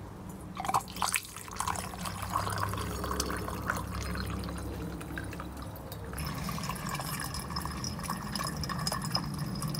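Concentrated ammonia solution poured into a glass flask, a steady pour of liquid after a few light clicks about a second in.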